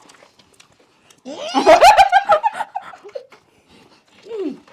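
People laughing loudly for about a second and a half, starting about a second in, followed by a short falling vocal sound near the end.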